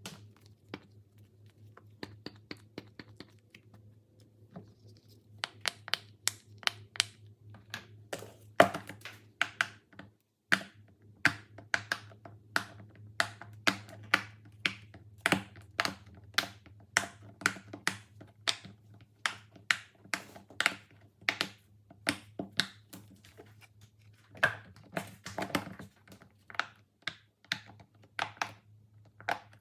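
Fidget toys being handled and pressed, giving a quick, irregular run of sharp clicks and pops, a few a second. The clicks are faint at first and louder from about five seconds in, over a low steady hum.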